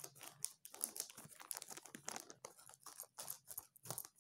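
Clear plastic packaging crinkling and rustling as it is pulled open by hand, an irregular run of sharp crackles.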